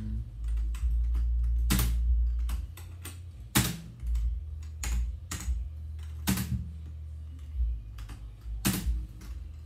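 Computer keyboard keys being pressed: a few loud key strokes at irregular intervals among lighter taps, over a steady low hum.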